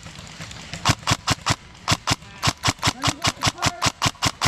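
Specna Arms E26 MK18 airsoft electric rifle firing a rapid string of single shots, about five a second, each a sharp crack of the gearbox cycling; the shots begin about a second in.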